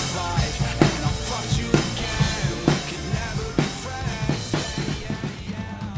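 Drum kit played along with a rock song, heavy snare hits about once a second over kick and cymbals, the whole mix fading out near the end.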